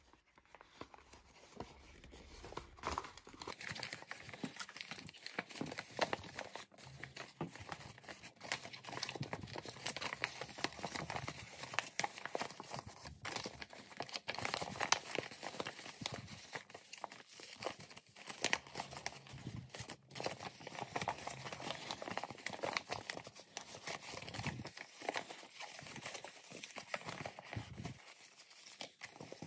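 A sheet of creased paper rustling and crinkling as it is folded and squeezed by hand, with many small irregular crackles. The paper is being crimped along its pre-creased lines, row by row, into an origami magic ball pattern.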